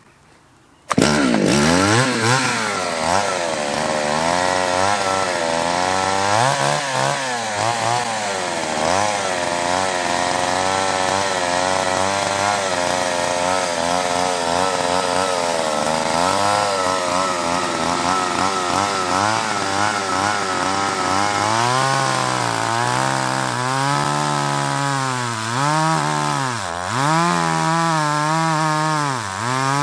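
Old Solo two-stroke petrol chainsaw running, starting abruptly about a second in. Its engine speed keeps rising and falling, with quicker, deeper swings in the last third.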